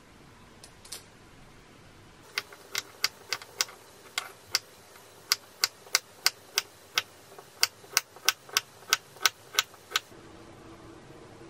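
Kitchen knife slicing a cucumber into rounds on a wooden cutting board: a run of about twenty sharp chops, roughly three a second, starting about two seconds in and stopping near the end.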